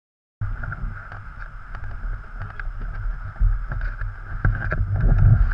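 160 cc single-cylinder pit bike engine running, heard through a helmet camera, with a heavy low rumble that rises and falls. It cuts in suddenly about half a second in.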